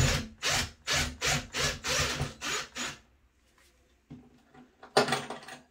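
Cordless drill backing a screw out of a towel-ring bracket in drywall, with a run of rhythmic scraping pulses about three a second. It stops about three seconds in, and a sharp knock follows near the end.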